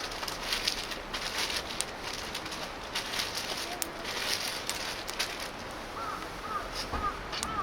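A bird calling in short runs of quick, arched, whistled notes, heard near the end, over a steady outdoor hiss with scattered sharp clicks.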